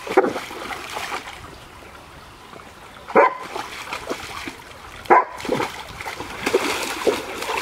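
A dog barking three times, a couple of seconds apart, while it paws and splashes in a shallow stream, with water trickling underneath.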